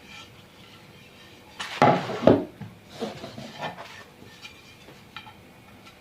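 Hard household objects clattering and knocking, with the loudest clatter about two seconds in, then a few lighter knocks and single clicks.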